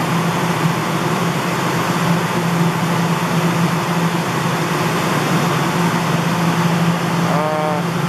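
Claw machine running while being played: a loud, steady mechanical hum and whir with a strong low tone. A short pitched sound comes near the end.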